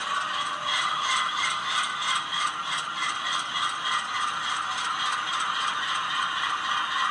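HO scale GE Dash 9-44CW model locomotive running slowly along the track: a steady mechanical whir from its motor and gears with a regular ticking of about three clicks a second.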